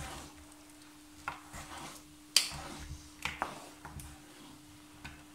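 Wooden spoon stirring thick lentil stew in an enamelled pot, with a few sharp knocks of the spoon against the pot and soft scraping between them, over a faint steady hum.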